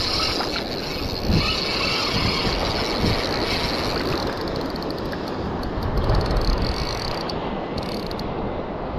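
Steady wind rumble on the microphone over the wash of shallow surf, with a few faint high ticks near the end.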